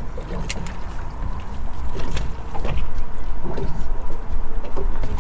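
Water lapping against the hull of a small boat, over a steady low rumble, with a few sharp clicks.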